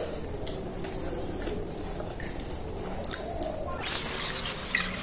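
A person chewing a mouthful of food eaten by hand, with small wet mouth sounds and faint clicks over low steady room noise.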